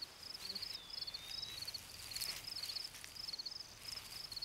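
Faint insect chirping: short, evenly spaced trains of chirps at one high pitch, repeating throughout. A thin, high whistle rises and then levels off about a second in.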